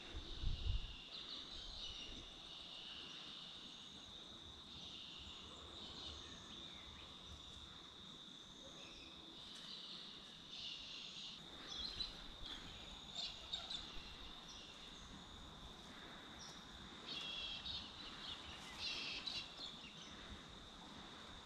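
Insects chirring steadily at a high pitch, with short bird chirps coming and going several times, most clearly in the second half. A couple of low bumps right at the start.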